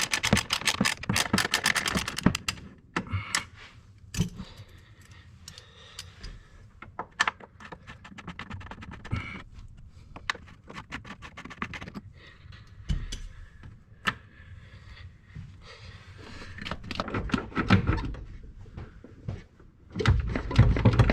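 Ratchet wrench clicking rapidly for about two seconds, then scattered clinks and knocks of hand tools on metal as the steering rack's U-joint and support bolts are worked loose on a 1983 Porsche 911, with louder handling noise near the end.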